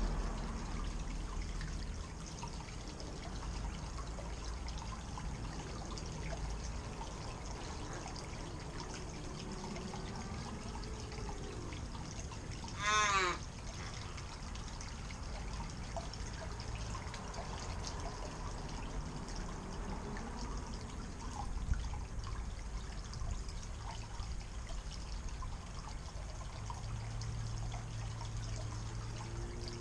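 Small rock waterfall trickling steadily into a garden pond. About 13 seconds in, a crow perched on the rocks gives one loud, drawn-out call.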